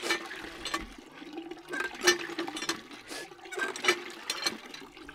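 Water splashing and pouring in irregular gushes, about one a second.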